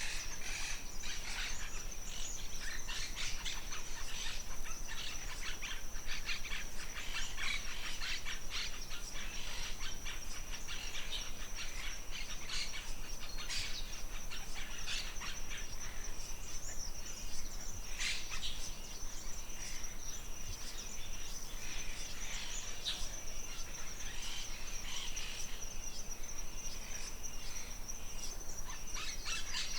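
Forest ambience: many birds chirping and calling over a steady, high-pitched insect trill.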